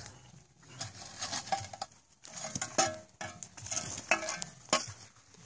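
Wood campfire crackling, with irregular sharp snaps and a sizzle.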